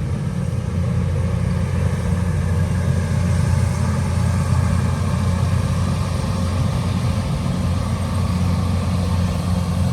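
An engine running steadily at a constant speed, a low drone with no revving.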